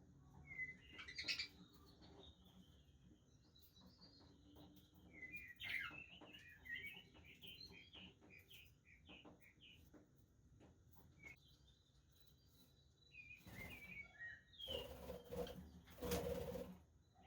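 Budgerigars chirping and twittering in short, quiet bursts, with a few louder rustling bursts near the end.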